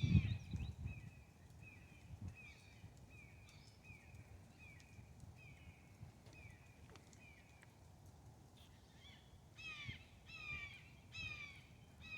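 Birds calling outdoors: a steady run of short, falling notes about twice a second, then around ten seconds in a few louder, falling calls. A low rumble sounds in the first second.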